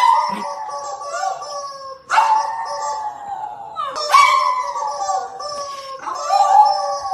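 Small dog howling along with a squawking rubber chicken toy that it presses with its nose: four long cries about two seconds apart, each starting sharply and sliding down in pitch.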